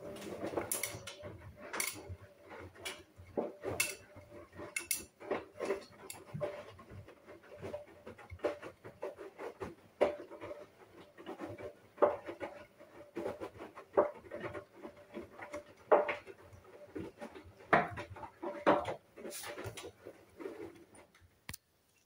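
Hoover front-loading washing machine tumbling a wet load of laundry: irregular clanks and knocks as the clothes drop in the drum, over a faint steady motor hum. The tumbling stops near the end.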